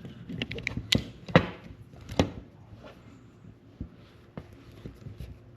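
Sharp metallic clicks and clacks of a Merwin Hulbert .44 revolver being handled and broken open for loading: three loud ones in the first two and a half seconds, then a few lighter clicks.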